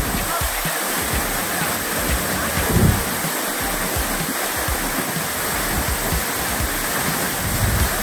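Waterfall pouring onto a shallow, stony pool close by: a steady, full rush of falling water, with brief low bumps about three seconds in and again near the end.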